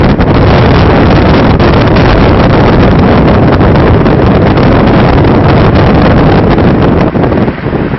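Moving car with heavy wind buffeting the microphone, loud and steady over the engine and road noise, easing a little near the end.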